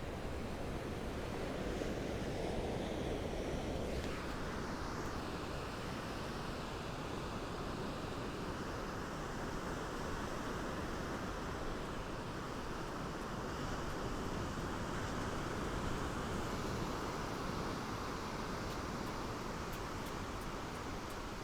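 Gentle ocean waves breaking and lapping on a sandy shore: a steady hiss of surf, with a wave washing in about four seconds in.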